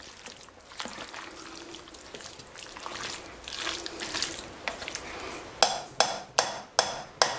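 A plastic spoon stirring a thick, wet mix of ground beef, diced potatoes, corn and cheese in a slow cooker crock, scraping and sloshing. Near the end the spoon knocks sharply against the crock five times in quick succession.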